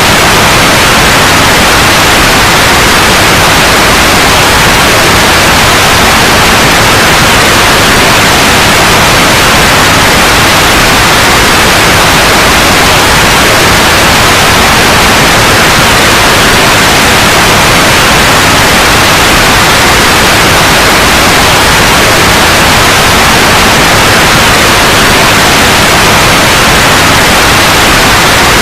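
Loud, steady white noise: an even hiss that does not change.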